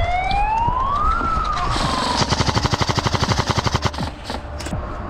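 A siren rises steadily in pitch for about a second, then slowly falls. About two seconds in, an airsoft gun cuts in with a rapid full-auto burst lasting about two seconds.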